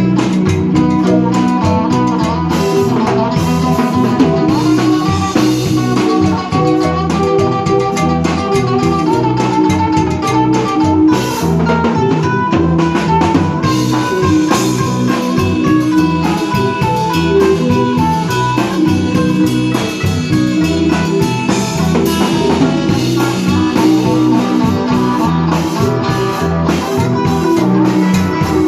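Instrumental band music: guitar and drums playing over a repeating bass line at a steady beat, with no singing.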